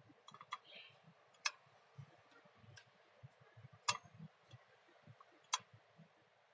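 Sharp mechanical clicks: three loud ones about two seconds apart, with fainter ticks and soft low knocks between them.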